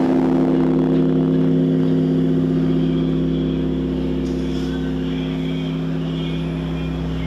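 Large Korean bronze bell of Bosingak humming on after a strike from its wooden striking beam: several steady deep tones with a wavering beat, slowly fading.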